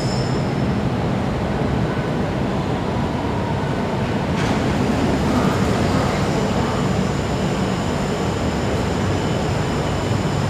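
MRT train approaching an underground platform, a steady rumble from the tunnel behind the platform screen doors. About four seconds in, a set of high steady whines joins the rumble as the train draws near.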